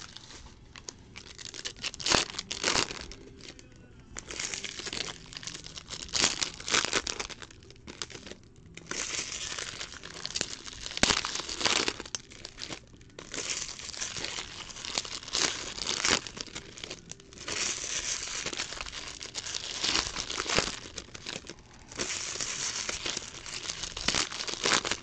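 Foil trading-card pack wrappers being torn open and crumpled by hand, crinkling in irregular bursts.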